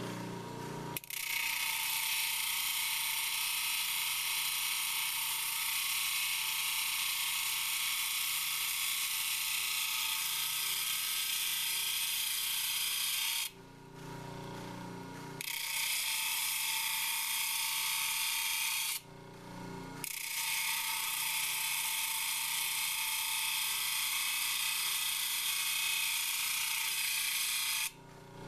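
A labradorite slab being ground on a worn, wet 100-grit flat lap wheel: a steady gritty hiss of stone on abrasive over the hum of the lap's motor. The stone is lifted off twice, about 14 seconds and 19 seconds in, and again at the end, leaving only the motor hum each time.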